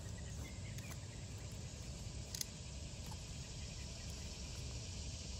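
Steady background insect chorus, with one faint click about two and a half seconds in.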